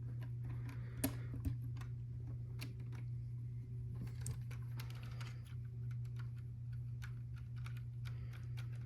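Scattered small clicks and taps of LEGO plastic pieces being handled and pressed back into place, over a steady low hum.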